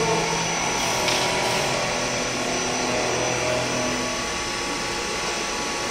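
Retrofitted Olivetti CNC milling machine running: a steady motor hum with a few whining tones that come and go and shift in pitch.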